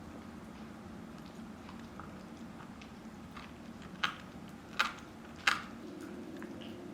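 Shiba Inu gnawing a dried Achilles tendon chew, with three sharp crunches about a second apart past the middle and fainter ticks of teeth between them, over a low steady hum.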